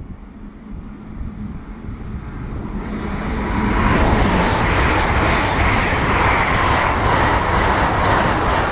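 Great Western Railway passenger train approaching and running past the platform. Its rumble and wheel-on-rail noise build over the first few seconds to a loud, steady rush, then start to ease near the end.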